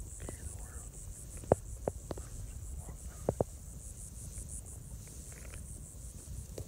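Insects chirping in a steady, high, pulsing chorus, with a few sharp clicks or snaps: the loudest about a second and a half in, another shortly after, and a close pair just over three seconds in.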